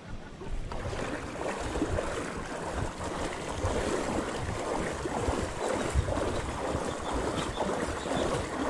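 Mountain bike wheels pushing through floodwater: continuous sloshing and splashing that starts about a second in, over a low rumble of wind on the microphone.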